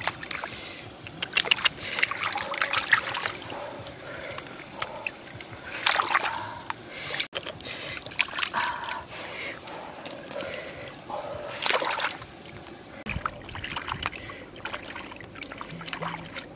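Hands splashing and sloshing in shallow stream water while eggs are washed, in irregular splashes with trickling drips between them.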